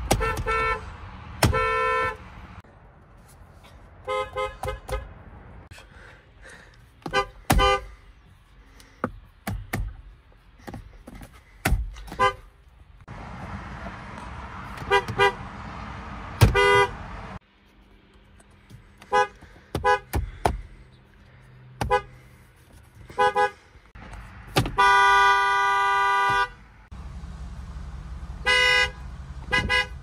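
Car horns of a series of different cars, among them a BMW, a Volvo and a Ford Mustang, each honked in turn: mostly short taps, some doubled, and one held blast of over a second near the end.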